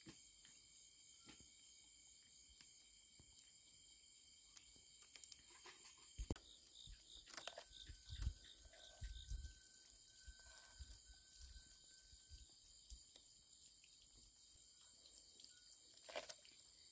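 Steady insect chorus at several pitches at once, with scattered small clicks and knocks and a few soft low thumps around the middle.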